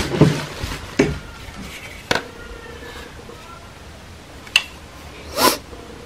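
Handling noise from unpacking a cordless vacuum cleaner's parts: about five short knocks and clicks of plastic pieces against the cardboard box, with pauses between them.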